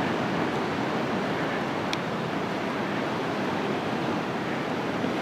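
Atlantic surf breaking on the beach: a steady wash of waves.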